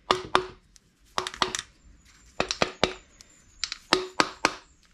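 Rubber mallet tapping a Stihl MS 200T chainsaw's crankcase in quick runs of three to five taps with short pauses between them, to work the two case halves apart.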